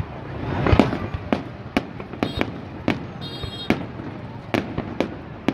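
Fireworks display: a continuous run of sharp bangs from shells bursting overhead, about one or two a second, over a steady rumble. Two brief high tones sound near the middle.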